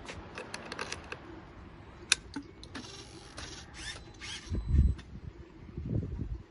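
Mechanical clicks and rattles from a motorcycle being handled before it is started, with a short whirring stretch about three seconds in and a dull low thump near the five-second mark, the loudest sound.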